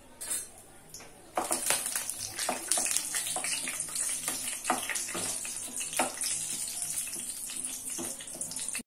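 Whole spices (bay leaf, cardamom, cloves, cinnamon) sizzling in hot oil in a wok as they are tempered. The sizzle starts suddenly about a second and a half in and keeps a steady hiss, with a spatula scraping and knocking against the pan as the spices are stirred.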